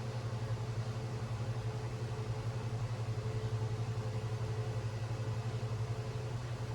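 Steady low mechanical hum with a fast, even pulse, like a motor or fan running.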